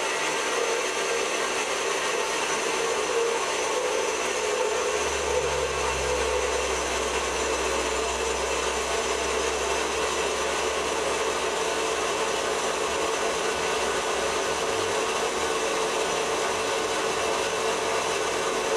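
Bandsaw running steadily while it cuts through metal pipe, a continuous machine hum with a grinding hiss.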